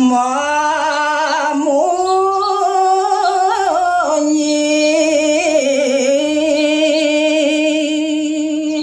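A man singing one unbroken, drawn-out line of a Balinese geguritan in the Pupuh Ginanti verse form, unaccompanied, his voice wavering through slow ornaments on held notes and stepping down in pitch about four seconds in.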